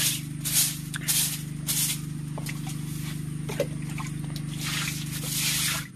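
Stiff stick broom scrubbing a wet floor: several quick swishing strokes in the first two seconds and a longer one near the end, with water splashing, over a steady low hum.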